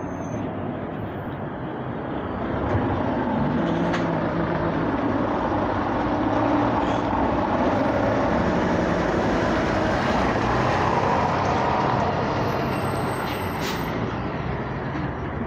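Heavy articulated livestock lorry driving past close by, its diesel engine and tyres growing louder about two seconds in, then easing off near the end as it pulls away.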